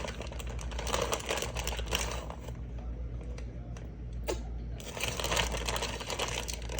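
Plastic cheese packaging being shaken and worked, crinkling and rustling in dense rapid crackles as shredded cheese refuses to come out, with a short lull about four and a half seconds in.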